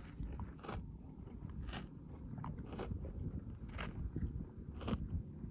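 A camel chewing its cud: regular crunching chews, about one a second, as it grinds food brought back up from its stomach.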